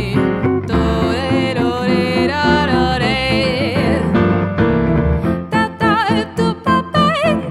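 Swing jazz: a woman scat-singing a wordless line over piano and guitar accompaniment, breaking into short, clipped notes in the second half.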